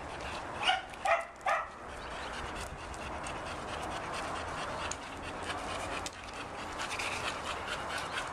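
A dog barks three times in quick succession, then a steady hiss-like noise carries on.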